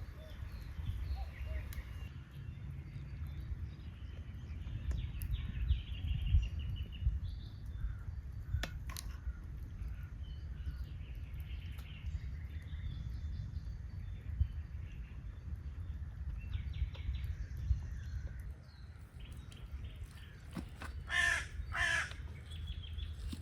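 Birds calling: scattered short chirps, then two loud calls in quick succession near the end, over a steady low rumble.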